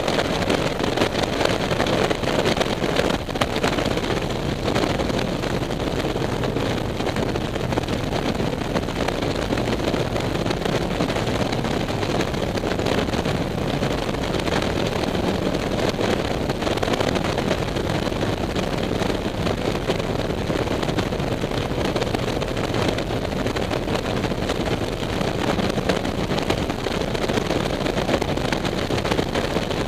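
Motorcycle running steadily at cruising speed, its engine hum under wind rushing over the bike-mounted microphone.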